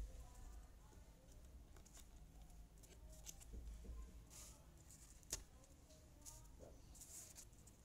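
Jigsaw puzzle pieces sliding and tapping on a tabletop as they are moved and fitted together: faint scattered clicks and rustles, with one sharper tap a little past halfway.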